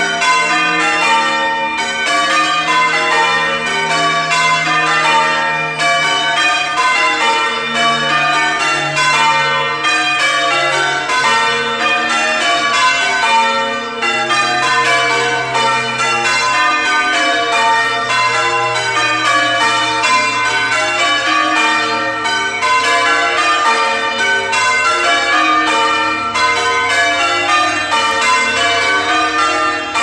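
Church tower bells being rung in changes (full-circle change ringing), the bells struck one after another in an even rhythm that runs on without a break.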